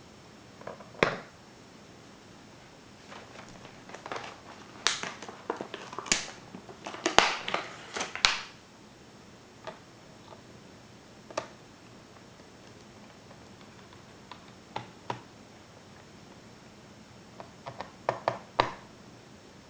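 Scattered clicks, taps and knocks of small tools and plastic laptop parts being handled during disassembly of a ThinkPad laptop. A busy run of clicks in the first half, a few isolated ones in the middle, and another short cluster near the end.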